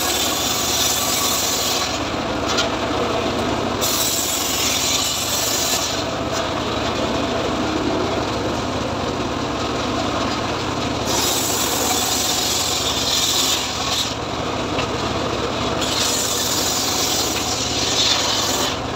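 Homemade engine-driven srekel sawmill ripping freshly felled teak: the blade hisses through the wood in several passes of a few seconds each, over the machine running steadily. There is a lull in the cutting in the middle.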